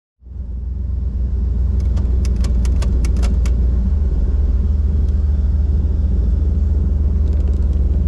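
Boosted 408 cubic-inch LS V8 idling, heard from inside the car's cabin: a steady low rumble whose note shifts slightly about four seconds in. A quick run of about ten sharp clicks comes around two to three and a half seconds in.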